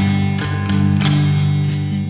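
Song music: steady held low notes with a few sharp struck-note attacks, about twice a second.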